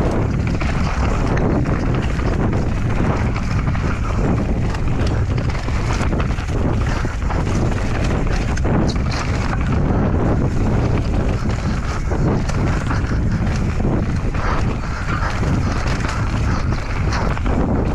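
Wind buffeting an action camera's microphone over the rumble of mountain bike tyres on a rough trail, with constant small knocks and rattles from the bike.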